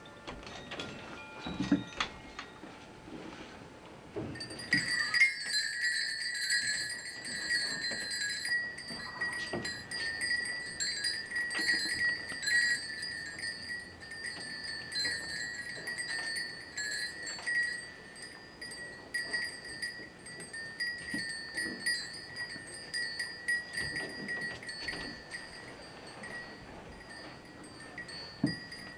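Metal bell ringing: a few struck tones die away at first. About four seconds in, a continuous shaken jingle starts, with a steady high ring.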